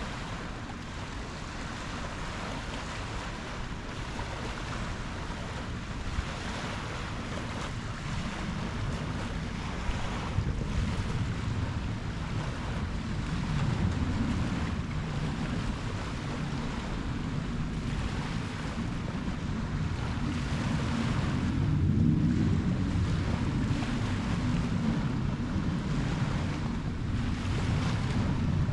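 Ocean waves surging and breaking in rolling swells, louder around the middle and again about two thirds of the way through, with wind buffeting the microphone.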